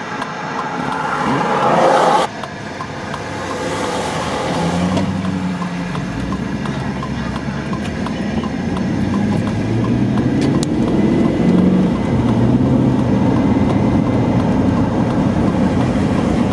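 Vehicle engine and road noise, rising slowly in level. From a few seconds in, the engine note steps up and down in pitch. A louder rush of noise cuts off suddenly about two seconds in.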